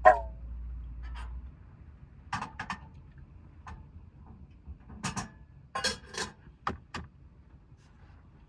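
Metal utensil clinking against metal cookware while eating. It opens with one sharp, ringing clink, then scattered lighter clicks and taps follow.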